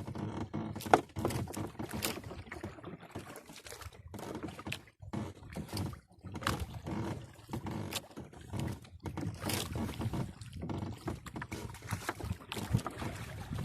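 Irregular knocks, clatter and splashing from crew work aboard a small fishing boat, with a short lull a little before the middle.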